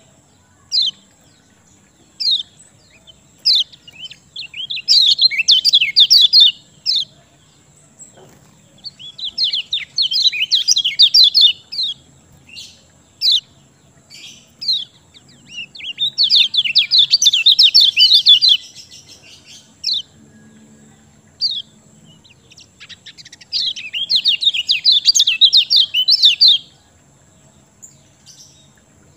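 Kecial kuning (yellow white-eye) songbird singing in bouts of fast, high twittering, each lasting two to three seconds and coming four times. Single short chirps fall between the bouts. This is the bird's full 'gacor' song, used as a lure to set other kecial singing.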